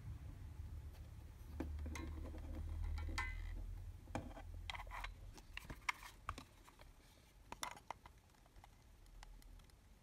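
Scattered light clicks and taps of a soldering iron and hands working on a small circuit board, over a low hum that fades out about four seconds in.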